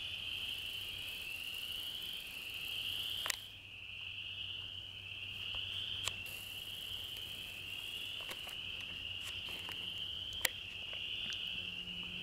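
A chorus of many small frogs calling together in a continuous high-pitched trill that wavers slightly, with a few sharp clicks about three, six and ten seconds in.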